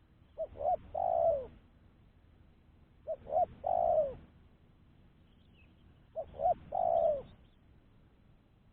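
Spotted dove (tekukur) cooing three times, about three seconds apart: each call is two short notes followed by a longer, falling coo.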